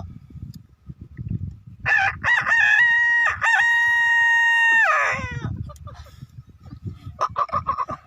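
A man imitating a rooster's crow with his voice: one long cock-a-doodle-doo starting about two seconds in, held on a steady pitch and falling away at the end.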